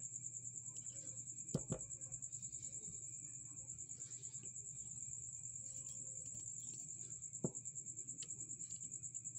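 Crickets trilling, a steady, fast-pulsing high sound over a low hum. A few sharp clicks, two close together about a second and a half in and one more later, as a small magnet knocks against the stones being tested for magnetism.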